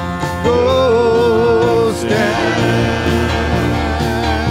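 Live church worship band music: a singer holds long wavering notes over the band's accompaniment.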